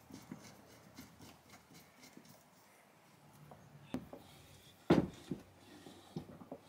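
Light clicks and knocks of metal parts on a vintage Black & Decker drill press stand as its feed lever is handled and worked, with a sharp knock about four seconds in and a louder one about five seconds in, then a few small knocks.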